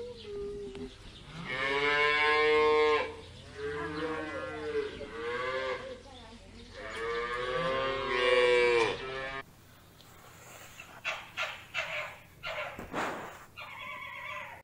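Holstein-Friesian cattle mooing: three long, drawn-out calls. About two-thirds of the way in the mooing stops, and a few short, sharp sounds follow.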